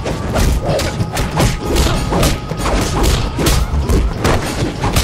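Film fight-scene sound effects: a rapid run of blows and baton strikes landing as thuds and whacks, about three a second, over a music score.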